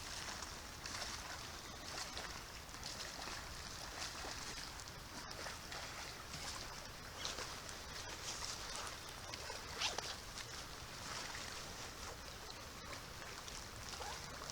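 Steady rush of river water, with a few short faint scraping or rasping sounds.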